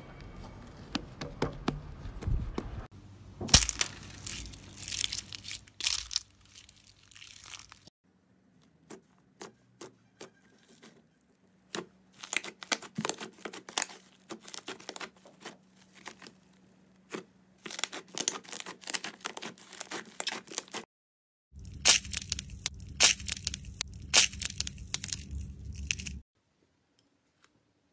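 Hands kneading, stretching and squeezing slime, with rapid runs of crackling pops and clicks. The runs come in several short clips, with brief silences between them.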